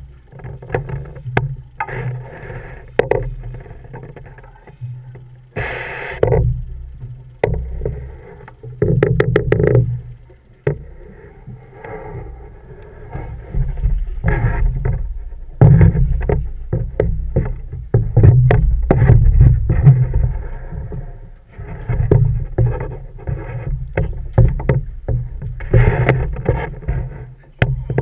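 Fishing boat at sea: an uneven, swelling low rumble with scattered clicks and knocks, including a quick run of about eight clicks about nine seconds in.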